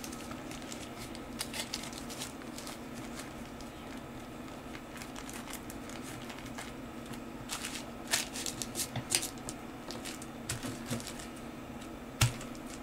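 Small plastic zip-lock bag crinkling and rustling in the fingers in scattered light clicks, with a sharper click near the end, over a steady low hum.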